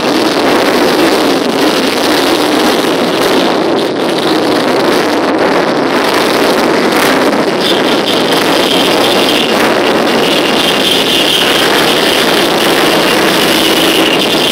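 Many motorcycle engines running as a slow column of bikes rides past, a loud, unbroken mix of exhausts. About halfway through, a steady high whine joins in.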